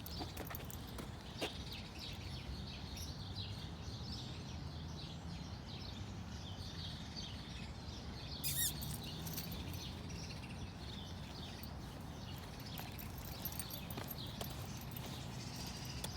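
Hooves clip-clopping as an animal moves about, with one short, louder noise about halfway through.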